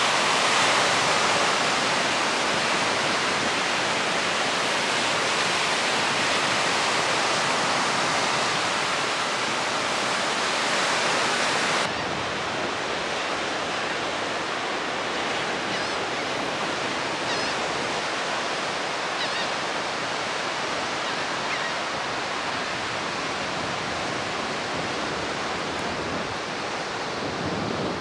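Steady rush of breaking ocean surf in big waves; about twelve seconds in it cuts to a slightly quieter, duller rush.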